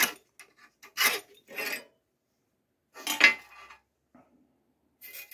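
Steel scriber scratching marking lines into a steel plate along a steel straight edge: about five short, scratchy strokes spread through the few seconds, the loudest a little past the middle.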